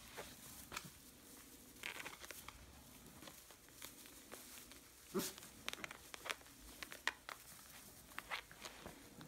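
Puppies moving about in straw bedding: irregular rustling and crackling of the dry straw.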